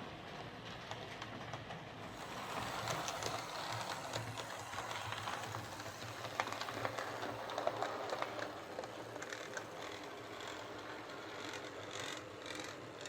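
Hornby Class 47 OO gauge model locomotive with a Ringfield motor running along the track: a steady motor whir with scattered clicks from the wheels. It grows louder about two seconds in and falls back after about eight seconds.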